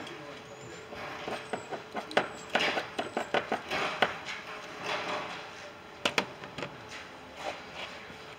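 Hand tools and parts being handled during dashboard disassembly: irregular clicks and knocks mixed with scraping and rustling, the sharpest knocks about two, four and six seconds in.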